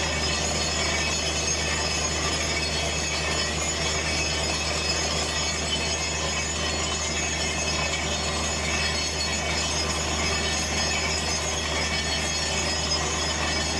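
Truck-mounted borehole drilling rig running flat out, with water and rock cuttings spraying out of the hole around the drill pipe. A constant loud din: a steady low hum under a high-pitched whine and the hiss of the spray, with no change throughout.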